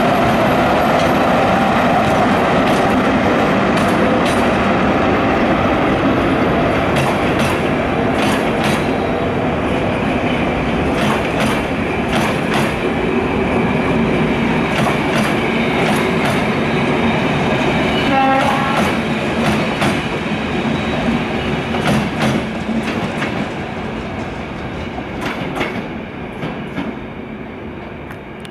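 BDZ class 45 electric locomotive and its train of passenger coaches rolling past, with steady running noise and repeated clicks of the wheels over rail joints, and a short high tone about two-thirds of the way through. The noise fades as the last coach clears near the end.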